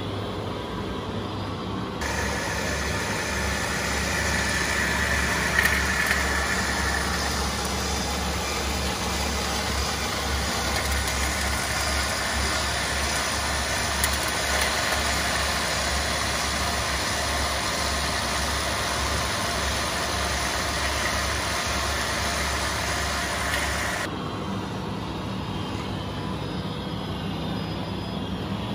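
A vehicle engine running steadily at a low, even hum. About two seconds in, the sound switches abruptly to a louder, fuller, hissier stretch. Near the end it drops back to the quieter hum.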